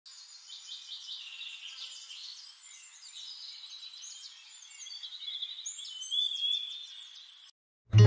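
Small birds chirping and singing, many short high calls overlapping, growing louder toward the end and cutting off suddenly just before the end.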